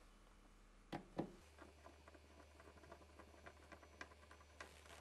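Two sharp clicks about a second in, then a run of faint irregular ticks as a screwdriver turns a screw into a small plastic housing, drawing its two halves together.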